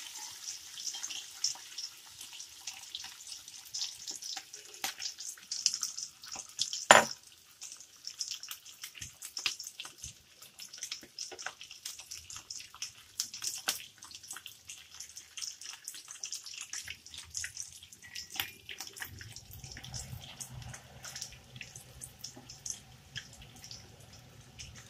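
Boiled potatoes shallow-frying in hot oil: a steady crackle and sizzle of spattering oil, with one sharp click about seven seconds in. A low hum joins in near the end.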